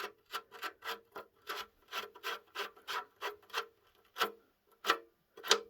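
Ratchet wrench being worked back and forth with short rasping strokes, about three a second, that space out near the end, backing out an oil pan drain plug.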